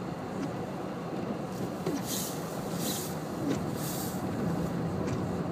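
Steady running noise inside a vehicle's cabin as it drives slowly through deep snow, with three short hissing swishes in the middle.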